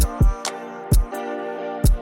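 Background music: a mellow beat with plucked guitar-like chords and deep bass hits.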